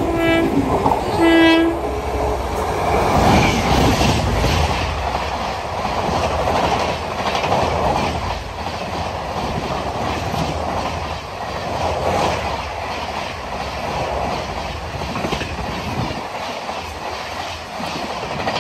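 Two short blasts of an electric locomotive's horn, then the August Kranti Tejas Rajdhani Express's LHB coaches rushing past at speed with a steady clatter of wheels over the rails.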